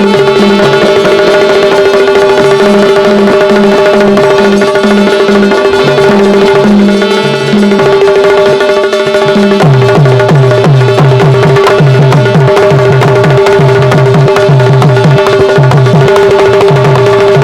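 Instrumental interlude of Indian folk music: a steady held drone note under a rhythmic hand-drum beat. About nine and a half seconds in the drum shifts to a new, evenly repeating pattern of about two strokes a second.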